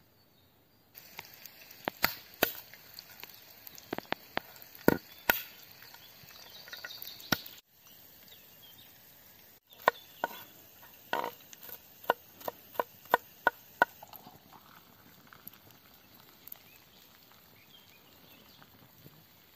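Knife chopping shelled walnuts on a wooden tree-stump board: a series of sharp knocks that quicken to about three a second past the middle, then die away to faint occasional ticks.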